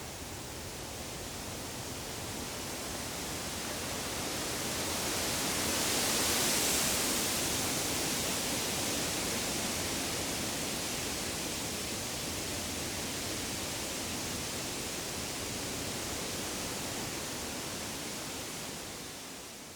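Wind rustling through the leaves of deciduous trees: a steady hiss that swells into a stronger gust about six or seven seconds in, then settles and begins to fade out near the end.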